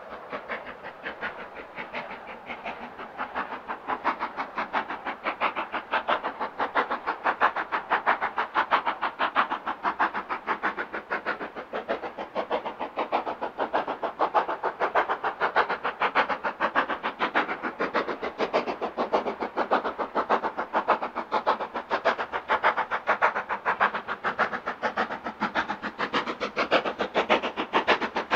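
LMS Black 5 two-cylinder 4-6-0 steam locomotive hauling a passenger train, its exhaust beating in a fast, even rhythm that grows louder over the first several seconds.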